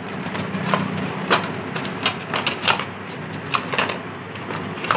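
Irregular clicks and rustles from handling a boAt Rockerz 330 Bluetooth neckband as it is pulled out of its cardboard box tray, with a cluster of quick clicks in the middle.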